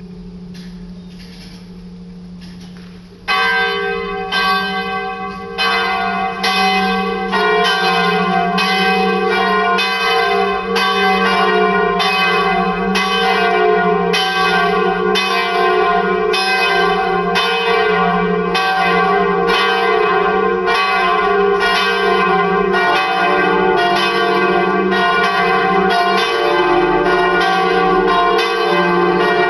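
Full swinging peal of the four church bells of Saint-Pierre, Mâcon, tuned to D, D sharp, F and G. About three seconds in, loud bell strokes break in over the steady hum of the ringing, the sound steps up again about two seconds later, and the bells go on striking in dense, overlapping strokes.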